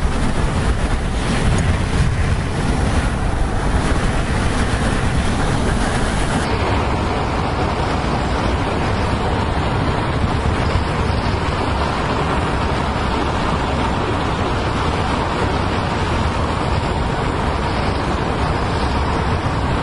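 Wind rushing past an open car window at speed and buffeting the microphone, over road and car noise. The sound shifts slightly about six seconds in.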